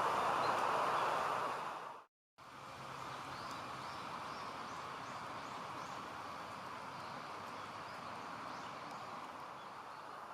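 Steady rushing outdoor background noise that cuts out abruptly about two seconds in, then resumes quieter, with a few faint, short, high bird chirps.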